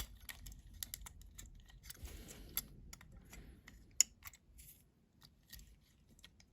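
Small sharp clicks and taps of a die-cast toy car's metal base plate and plastic interior parts being pressed and fiddled together, with a brief scrape about two seconds in. The base plate is not seating properly.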